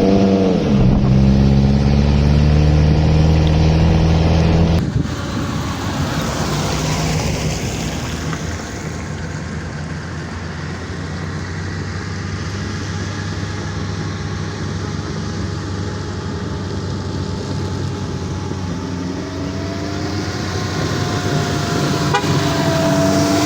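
An off-road vehicle's engine running with a steady, pitched sound for about five seconds. It then drops off suddenly to a quieter, rougher running sound, and gets louder and more pitched again near the end.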